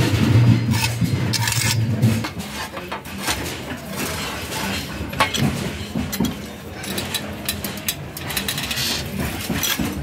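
Steel plate scraping and clinking against metal as it is handled and set into a lever-operated bench shear. A low steady hum is there for about the first two seconds and then stops.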